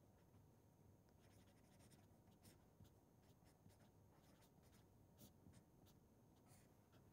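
Faint strokes of a marker pen writing on paper, a string of short strokes and taps as an equation is written out.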